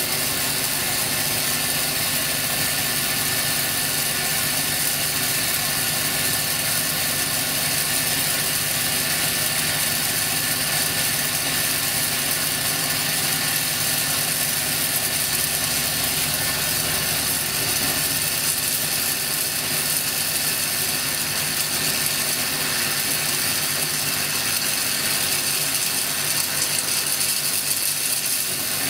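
Electric arc discharging from an electrode tip into salted water, giving a continuous rapid crackle that stays steady in level throughout.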